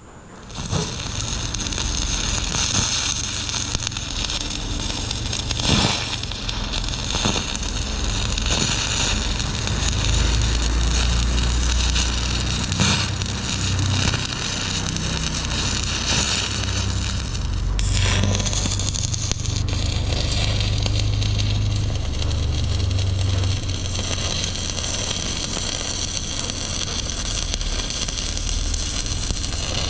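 Stick (MMA) welding arc running steadily as a weld run is laid on steel, starting about a second in.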